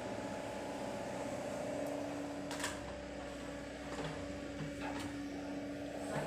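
Excavator engine running with a steady hum, with a few sharp clicks or knocks about two and a half, four and five seconds in.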